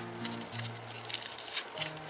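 Gentle piano music with held notes, over the fine crackling and squishing of grey foam bead clay being squeezed and pulled apart by hand.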